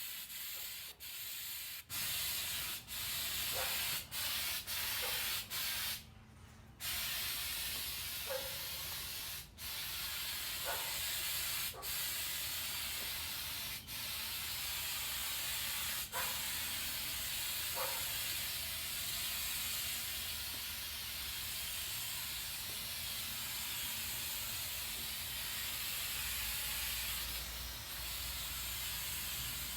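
Aerosol spray can of undercoating hissing. It comes in short bursts with brief breaks for the first dozen or so seconds, stops for about a second around six seconds in, then sprays continuously.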